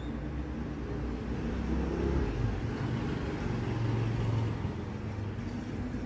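Low engine rumble and hum of passing road traffic, swelling a little from about two seconds in before easing off.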